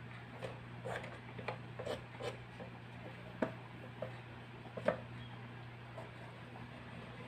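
A miniature knife cutting and scraping squash on a small wooden cutting board: irregular soft scrapes and light taps, with two sharper knocks of the blade on the board about three and a half and five seconds in, over a steady low hum.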